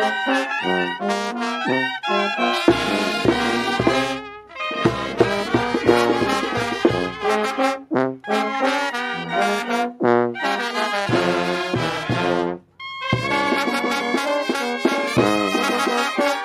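Brass band playing a tune, with trumpets and trombones prominent. The playing breaks off briefly about three-quarters of the way through, then picks up again.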